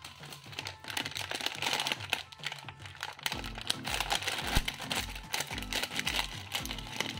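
Crinkling of a plastic-foil snack packet as it is handled and cut open with scissors. Background music with a steady bass beat comes in about three seconds in.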